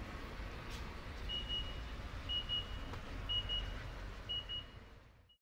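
Electronic beeper sounding a quick double beep about once a second, over a steady low rumble, fading out near the end.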